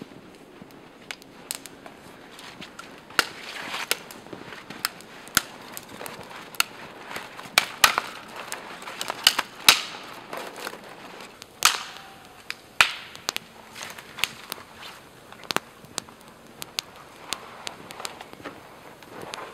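Small open wood campfire of sticks crackling and popping, with sharp irregular snaps scattered throughout.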